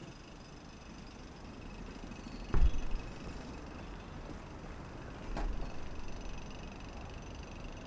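Layered city street ambience with a steady traffic hum, broken by a sharp knock about two and a half seconds in and a softer thump about three seconds later.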